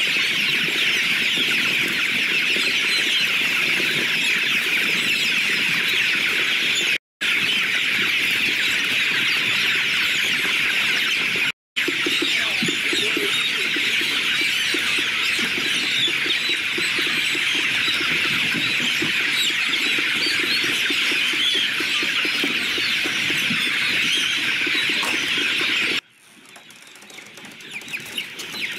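A large flock of young chickens cheeping continuously, a dense high-pitched chorus of chirps. Two very brief silent gaps break it. Near the end it drops suddenly to a much quieter level and then slowly builds back up.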